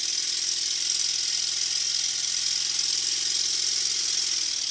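Stuart Sun model steam engine, with single-acting cylinders, running fast on compressed air at slightly raised pressure: a steady high-speed buzz with a hiss of air. The pitch dips slightly near the end as it slows a little.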